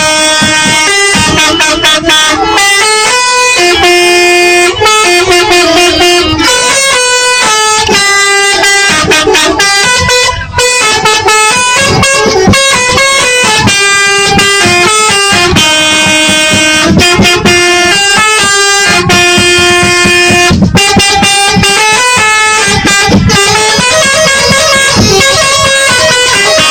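Garuda Mas bus's telolet horn, a set of electric multi-tone horns playing a tune. The notes are loud and held, stepping up and down in pitch almost without a break, with a brief dip about ten seconds in.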